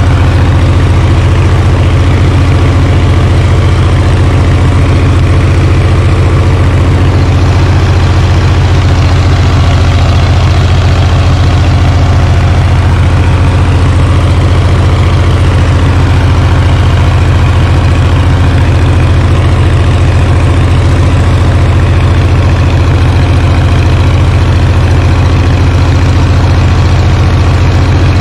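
Oliver 1850 tractor engine idling steadily, heard close up.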